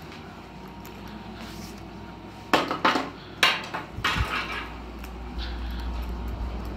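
A few sharp clattering knocks of hard objects, three in quick succession about two and a half seconds in, then a softer low thump, over a low steady hum.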